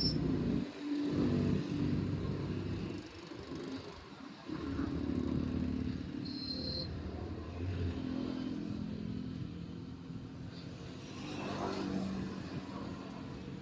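Motor vehicle engines running close by, swelling and fading several times as they rev or pass.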